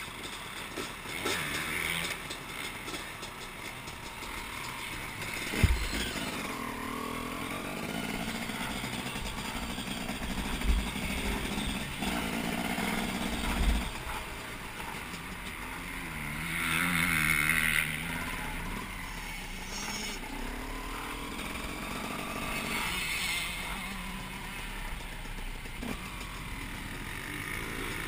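KTM dirt bike engine heard from the rider's helmet camera while riding slowly over rough dirt, the revs rising and falling. A few sharp low thumps come through along the way.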